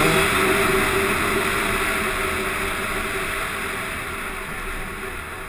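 Yamaha YZ250 two-stroke dirt bike engine with wind rush, heard from on the bike; the engine note sinks and fades steadily, leaving mostly wind noise by the end.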